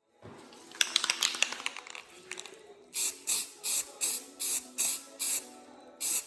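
A run of rapid clicks and rattles, then a series of short, sharp hisses at about two and a half a second, with one more near the end.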